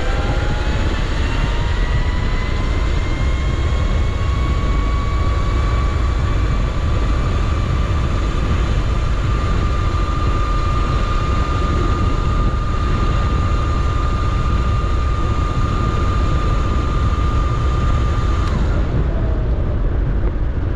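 Razor RSF650 electric motorcycle's motor whining, rising in pitch as it accelerates on speed level 2, then holding a steady whine at top speed, under heavy wind rumble on the microphone. The whine stops shortly before the end.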